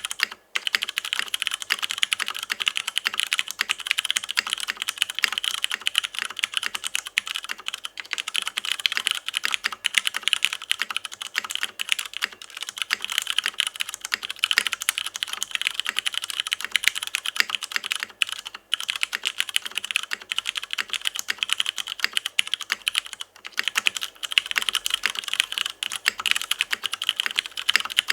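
Fast continuous typing on a mechanical keyboard with stock Cherry MX Hyperglide Brown tactile switches, an aluminium plate and PBT keycaps: a dense stream of bright clacks, broken by a few brief pauses.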